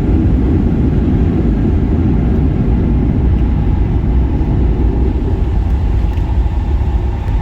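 Steady, loud low rumble of a Boeing 757-300's cabin as the airliner arrives on the ground: engine and airframe noise with no distinct events.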